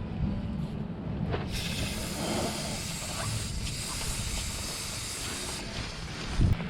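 Aerosol spray can hissing in one steady spray of about four seconds that starts and stops abruptly, typical of chain cleaner or degreaser being sprayed onto a motorcycle chain and sprocket.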